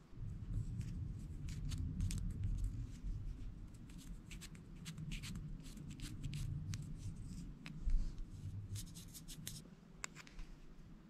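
Very long, overgrown fingernails clicking and scraping against one another as the hands move, in irregular clusters of light clicks, over a low rumble of hands rubbing close to the microphone. A dull bump about eight seconds in is the loudest moment.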